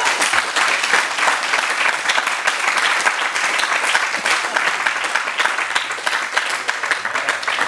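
A small group of onlookers clapping in applause, a dense patter of hand claps that thins a little toward the end.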